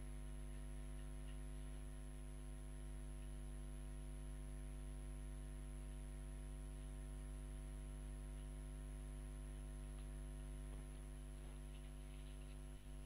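Steady electrical mains hum with a stack of evenly spaced overtones: the background hum of the recording setup.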